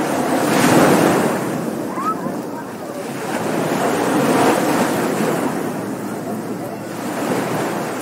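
Waves breaking on a beach, the surf swelling and ebbing, with two stronger breakers about a second in and around four and a half seconds and a smaller one near the end.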